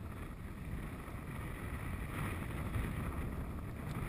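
Steady wind rumble on the microphone, with the open sea around a small fishing boat.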